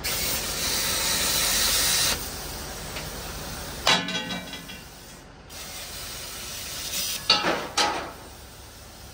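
Oxy-fuel preheating torch hissing loudly for about two seconds, then cutting off abruptly. About four seconds in comes a ringing metallic clank, and a few sharper metal knocks follow near the end.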